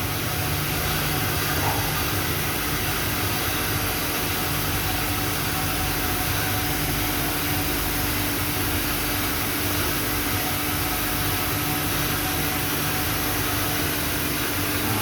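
Steady mechanical hum and hiss of a running Pattyn CNC box-making machine, with a steady tone that sets in about a second in.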